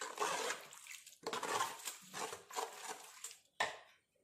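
A ladle stirring watery ragi porridge in a clay pot: several sloshing, scraping strokes that stop about a second before the end.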